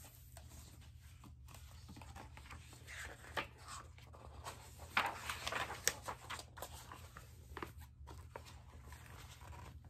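Faint rustling, crinkling and light taps of a hardcover picture book being handled and its pages turned, over a steady low hum.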